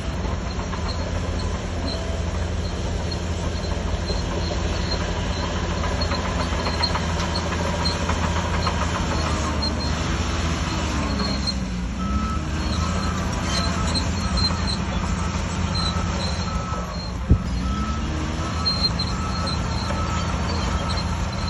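Diesel engine of a Shantui DH17C3 crawler bulldozer working steadily under load, its pitch swelling up twice as it takes on more. A single sharp knock comes about three-quarters of the way through, and a repeating beep joins in about halfway.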